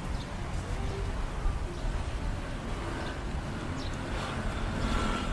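Busy street ambience: traffic running past in a steady low rumble, with indistinct voices of passers-by.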